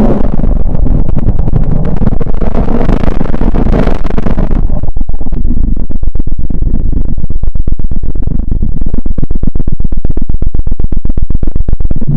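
Synthetic "planet sound" space audio: a loud, deep rumbling drone chopped by rapid crackling pulses, with a hissing wash over it that fades about four and a half seconds in.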